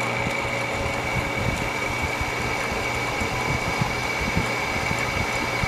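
Frigidaire 5,000 BTU window air conditioner running on low cool. It gives a steady hum under a thin, constant high whine, with the noise of a fan motor that the owner says does not sound good and blames on a bad motor.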